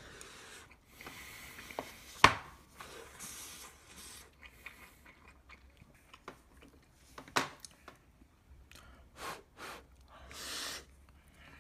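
Tableware handling during a meal: one sharp knock about two seconds in, then scattered light clicks and taps, with some soft chewing.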